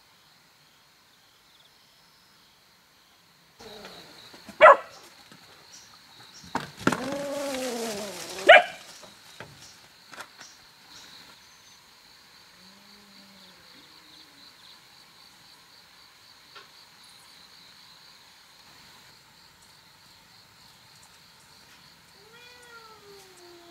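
A domestic animal gives one long pitched cry that rises and then falls, between two sharp loud knocks, over a steady high trill of night insects. Near the end comes a softer call that falls in pitch.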